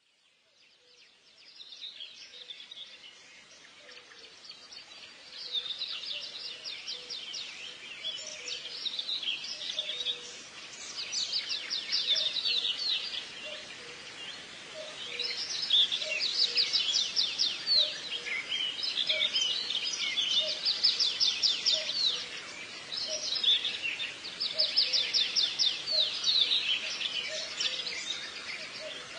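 A small songbird singing, phrase after phrase of very rapid high trills, each a second or two long, growing louder after the first few seconds.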